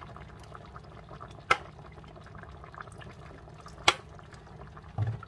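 Chicken curry simmering in a pot with a steady bubbling crackle, and two sharp clicks about a second and a half and four seconds in.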